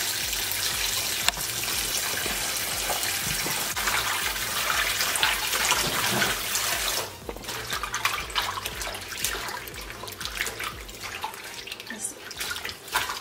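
Kitchen tap running into a stainless steel bowl while gloved hands rub and swish pig feet in the water. About seven seconds in, the steady running stops, and irregular splashing and sloshing from the hands working the meat carries on.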